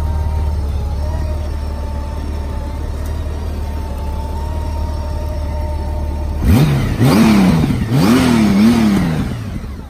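Honda Gold Wing GL1800 flat-six engine idling steadily, then revved in about four quick throttle blips starting about six and a half seconds in, each rising and falling in pitch, before settling back down near the end.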